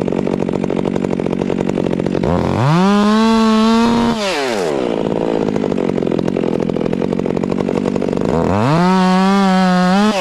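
Two-stroke chainsaw idling, then revved up to full throttle twice, each time held for about two seconds before dropping back to idle.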